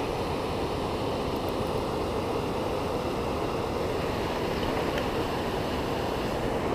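Steady rush of flowing river water, an even noise that holds level without strokes or changes.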